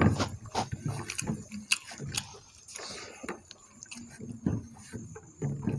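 Close-up eating sounds of people eating dal and rice with their fingers: chewing and irregular wet mouth clicks and smacks.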